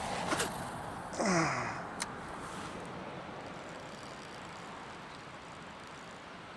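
A man gives one short sigh about a second in, its pitch falling steeply, over a steady outdoor hiss with a few faint clicks.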